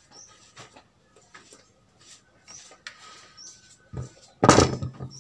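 Faint clicks and small knocks of metal air-rifle parts being handled, then a loud clatter of about half a second near the end, as the rifle's metal body is laid down on the wooden table.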